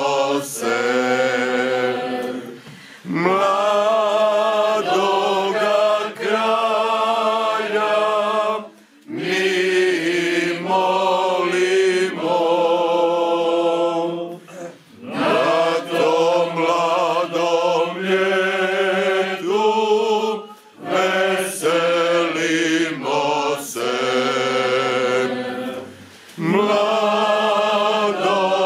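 Small mixed choir of men's and women's voices singing a Christmas carol a cappella, in phrases of a few seconds with short breaks for breath between them.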